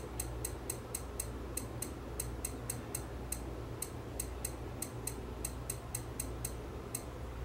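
Electronic clock's beeper giving short, high-pitched ticks about four to five times a second as the year setting steps up rapidly while a button is held down. A steady low hum runs underneath.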